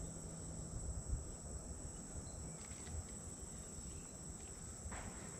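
Steady high-pitched insect drone over a low rumble, with a few faint clicks.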